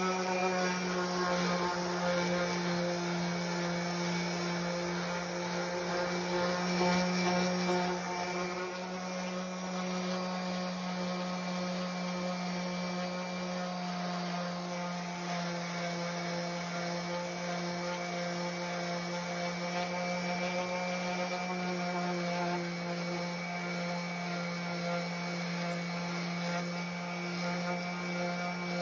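DeWalt random orbital sander running steadily with a constant hum as it sands the paint back off the face of a carved wooden sign, leaving clean lines.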